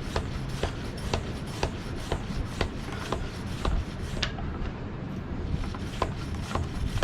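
Floor pump worked fast to inflate a tubeless road tyre with no sealant in it, a sharp click on each stroke about twice a second, with a short pause a little past halfway. The tyre's bead has not yet seated.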